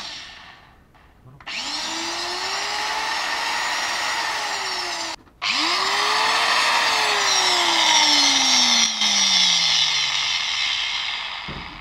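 Einhell 125 mm angle grinder running free, just reassembled: the motor spins up with a rising whine and a strong high hiss, cuts out abruptly about halfway, restarts at once, then its whine sinks in pitch and fades near the end. Its bearings and brushes are worn and still due for replacement.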